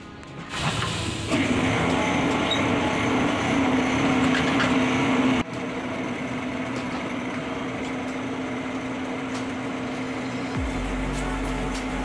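A steady machine running noise with a constant hum. It drops sharply about five seconds in and carries on quieter, and a deeper hum joins near the end.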